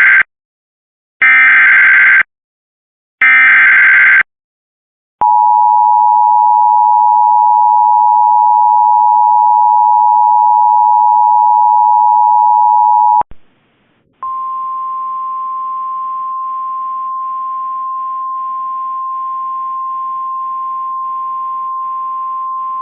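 Emergency Alert System tones: three short, harsh SAME header data bursts, then the steady two-tone EAS attention signal for about eight seconds. After a brief break comes a single steady tone, a little higher in pitch, held for about nine seconds before the severe thunderstorm warning message.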